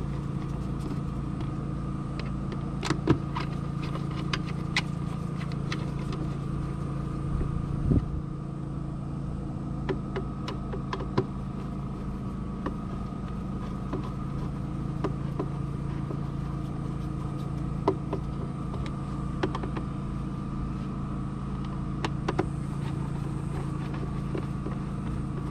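An engine idling steadily, a constant hum with several pitched tones over a low rumble, with scattered light clicks and taps.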